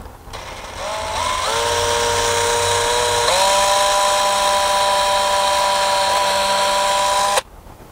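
DeWalt cordless drill pre-drilling pilot holes for the screws of a railing bracket with a small 1/16 or 1/8 inch bit. Its motor whine climbs in pitch in a few steps as the trigger is squeezed, runs steady at high speed, then stops abruptly near the end.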